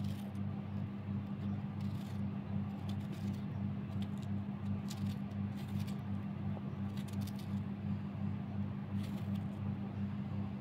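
A kitchen knife cutting vegetables held in the hand over a plate, giving scattered short, sharp cuts and clicks. Under it runs a steady low electrical hum, which is louder than the cutting.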